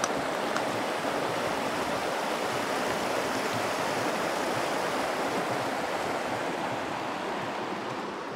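A shallow, rocky upland stream rushing steadily over stones below a bridge, easing slightly near the end.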